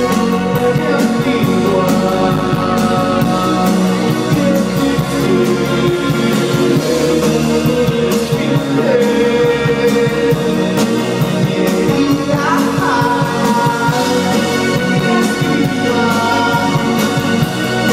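Live rock band playing loudly, with a singer over drums, guitar and keyboard, heard from the audience.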